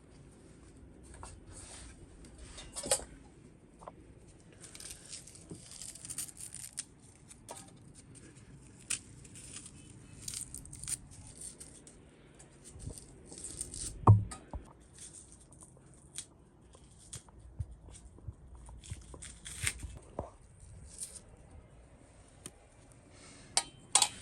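Food-preparation handling sounds: irregular rustling, tearing and light clicking and tapping, with one heavy knock about halfway through and two sharp clicks near the end.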